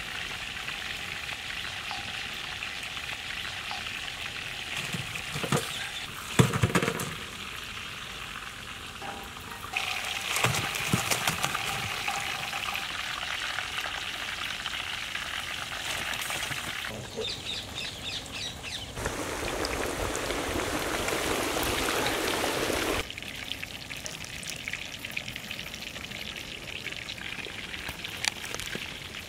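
Chicken drumsticks deep-frying in a large kadai of hot oil: a steady sizzle that changes abruptly in level several times. About six seconds in there are a few knocks, as a metal slotted spoon hits the pan.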